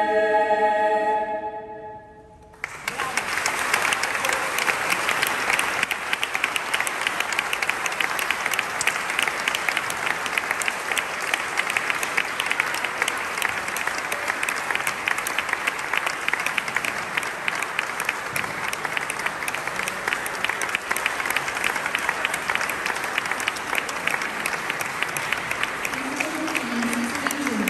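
A choir's final held chord dies away about two seconds in; after a brief hush, a large audience breaks into sustained applause.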